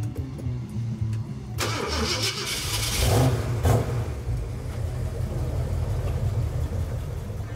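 Classic Ford Mustang engine starting and running, with a loud surge of revving beginning about a second and a half in and peaking around three to four seconds, then settling to a steady run.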